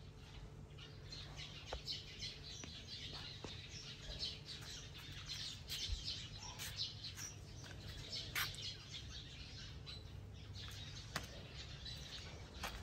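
Small birds chirping repeatedly in short high notes, over a faint steady low hum, with a few soft clicks.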